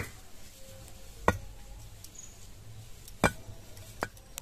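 Fired bricks knocking as they are set in place to build a brick stove: four sharp knocks a second or so apart, the first the loudest.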